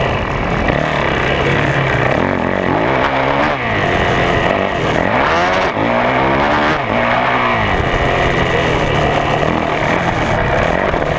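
2011 Yamaha YZ450F single-cylinder four-stroke motocross engine at race pace, heard from on board. Its pitch swoops up and down several times around the middle as the rider accelerates, shifts and rolls off through the turns, and it runs hard and steady on either side.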